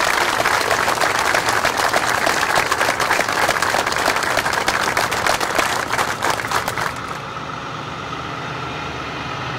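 Audience applauding, a dense clapping that stops abruptly about seven seconds in. It gives way to a semi truck's engine idling steadily with a low hum.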